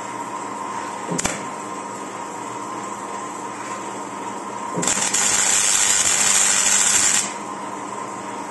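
Wire-feed (MIG) welder: a steady machine hum with a click about a second in, then about five seconds in a loud, even crackling hiss of the welding arc for about two and a half seconds as a square steel tube is tacked to a steel plate, cutting off sharply.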